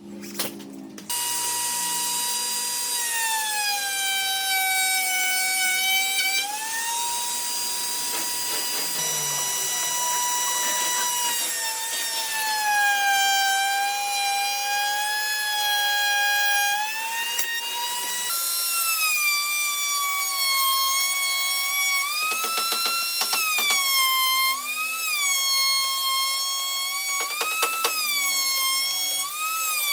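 Electric power tool motor whining at high speed, its pitch sagging and recovering as it is loaded and eased off. Later it wavers quickly, with a couple of short bursts of cutting noise.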